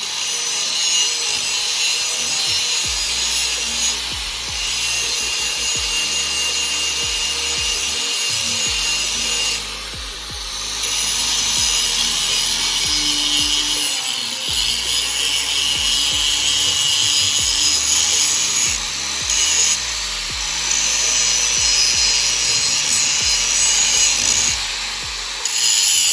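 An 11-amp DeWalt angle grinder grinds the edge of a steel brush cutter blade to sharpen it. It makes a steady, harsh, hissing grind that dips briefly several times.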